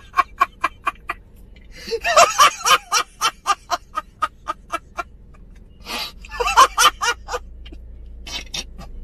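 A man laughing hard in rapid short bursts, about five a second, with two louder bouts about two seconds in and about six and a half seconds in, then trailing off near the end.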